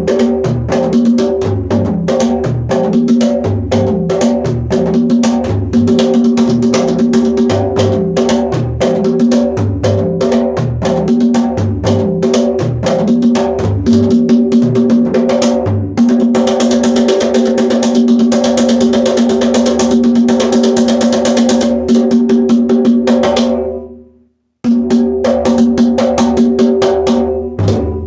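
Full-size camel-skin bougarabou played by hand: a steady rhythmic pattern of deep bass strokes and ringing tones. About two-thirds of the way through the playing turns into a fast, dense roll that fades away; after a brief silence the drumming starts again near the end.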